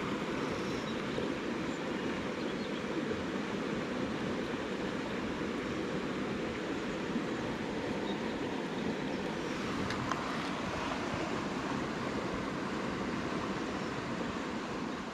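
Steady rush of flowing stream water, even and unbroken, with a faint tick or two about ten seconds in.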